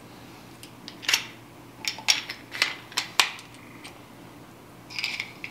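Sharp metal clicks and clinks of a small hand wrench on the oil burner's pump bolts: about half a dozen irregular clicks in quick succession, then another short cluster near the end.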